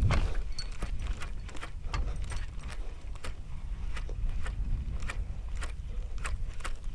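Baitcasting reel and rod clicking and ticking as a jerkbait is twitched and reeled in: irregular sharp clicks, about one or two a second, over a low rumble of wind on the microphone.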